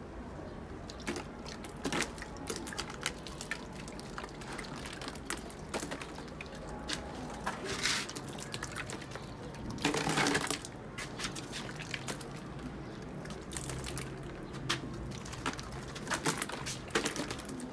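A rubbish fire crackling, with many irregular sharp pops and snaps, and a louder rushing burst about ten seconds in.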